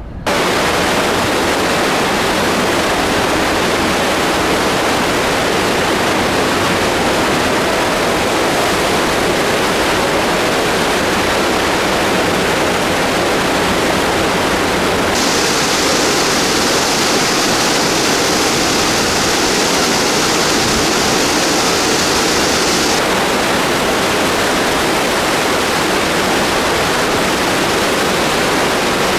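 Steady rush of churned water in a cruise ship's propeller wash and wake. A brighter hiss joins in for several seconds about halfway through.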